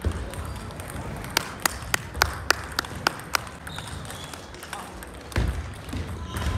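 Table tennis ball bouncing, a run of about eight light, evenly spaced clicks, three or four a second, followed a couple of seconds later by a low thud.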